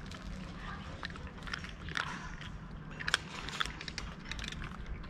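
A cat chewing dry kibble: irregular crisp crunches, the sharpest about three seconds in, over a steady low background hum.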